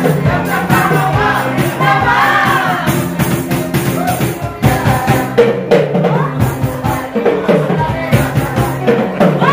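Live band music: a singer over a steady drum beat and bass, played for dancing.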